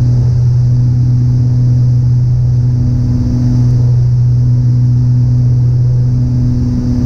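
Cabin drone of a twin-engine piston aircraft's engines and propellers on approach to land: a steady low hum with an overtone that slowly swells and fades about every second and a half.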